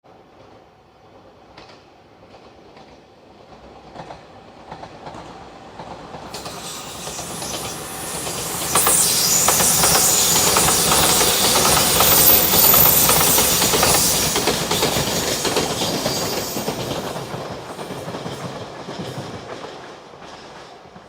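An electric express train passing close by at a level crossing. It grows from a distant rumble to a loud clatter of wheels over rail joints, is loudest about nine to fifteen seconds in, then dies away.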